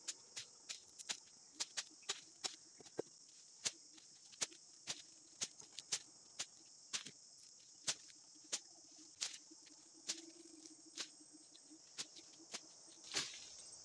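Steady high-pitched chorus of insects, with sharp irregular clicks and snaps about twice a second and one louder, fuller hit near the end.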